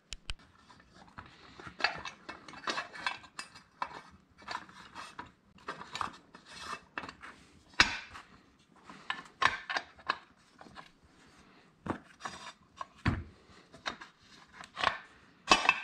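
Small steel transmission parts clinking, tapping and scraping as the shift rails and detent parts are fitted by hand into an NP435 transmission's shift cover. Irregular clicks and light knocks, the sharpest about eight seconds in and again near the end.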